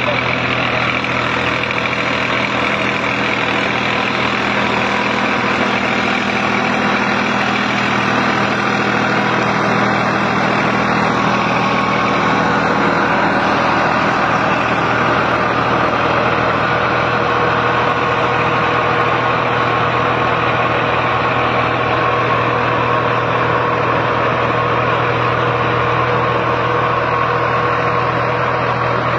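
New Holland 3600-2 tractor's diesel engine running steadily, its tone shifting slightly about twelve seconds in.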